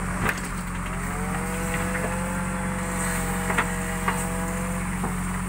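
JCB backhoe loader's diesel engine running steadily under load, with a hydraulic whine that rises about a second in and holds as the backhoe arm digs. A few short knocks of the bucket against soil and stones.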